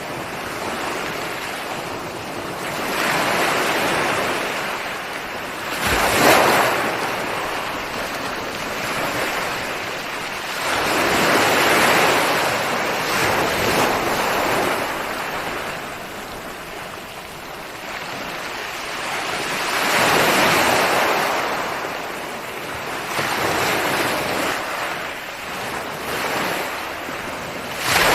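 Ocean surf: waves breaking and washing up the shore in slow swells every few seconds, with a sharper, louder break about six seconds in and another right at the end.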